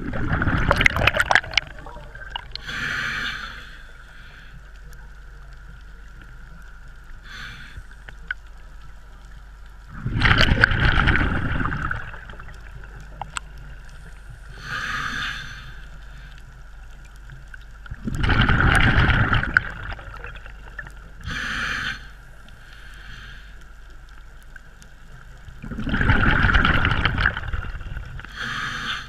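Scuba diver's breathing heard underwater through a regulator: four long rushes of bubbling exhaled air about eight seconds apart, each followed a second later by a shorter hiss.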